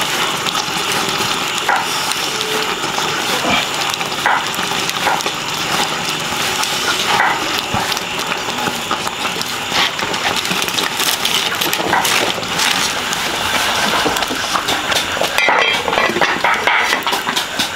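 Wood fire crackling under a cooking pot, with small clicks and scrapes of chopsticks stirring in the metal pot.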